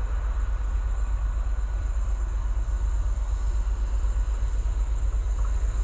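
Diesel locomotives hauling a rail train, a steady deep rumble: the class 55 and the ex-DB class 233 Ludmilla with its 12D49M engine.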